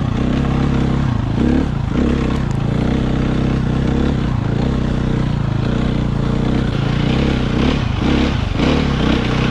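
Dirt bike engine running hard up a snow-covered trail, its revs dipping and picking up again several times with the throttle.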